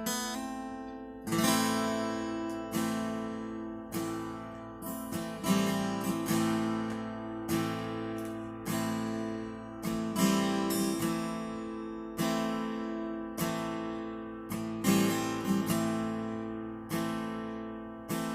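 Acoustic guitar playing an instrumental introduction: chords strummed again and again, each struck sharply and left to ring and fade.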